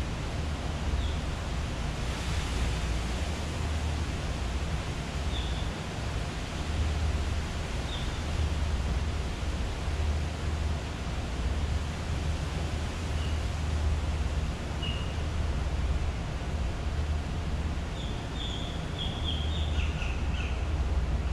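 Steady outdoor background noise with a low rumble, dotted with a few short, high chirps that come more often near the end.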